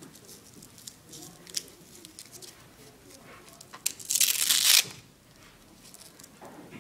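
Faint clicks and rustles of equipment being handled, with one loud ripping sound of under a second about four seconds in.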